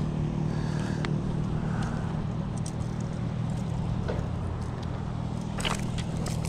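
A steady low mechanical hum, like a motor running, with a few clicks and rustles near the end.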